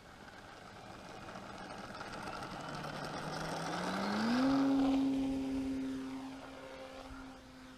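Radio-controlled Laird Super Solution model biplane's motor and propeller throttling up for takeoff. The pitch rises for about a second and a half, then holds steady and fades as the plane runs away down the strip.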